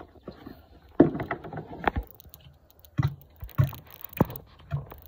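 Handling noises at a four-wheeler's fuel tank while its cap is taken off to check the gas: a louder knock with a short scrape about a second in, then a run of sharp clicks and knocks roughly every half second.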